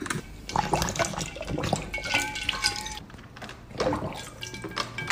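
A Weimaraner splashing and slurping with its muzzle dunked in a bowl of water and ice cubes: a quick, irregular run of wet splashes.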